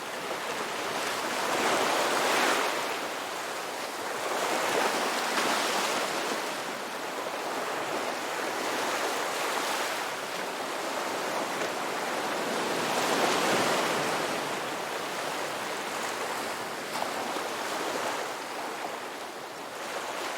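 Ocean surf: waves breaking and washing up a beach, a continuous rush that swells and fades in slow surges, loudest about two, five and thirteen seconds in.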